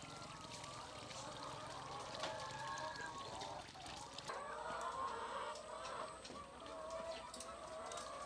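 Several chickens clucking, their calls overlapping.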